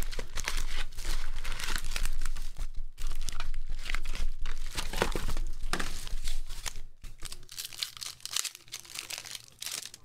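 Foil wrappers of Donruss Optic basketball card packs crinkling, rustling and tearing as the packs are pulled from a retail box, handled and torn open. Louder for the first several seconds, then fainter.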